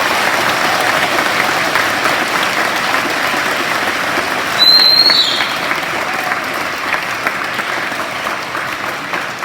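An audience of schoolchildren clapping steadily, easing off slightly towards the end. A short high whistle cuts through about halfway.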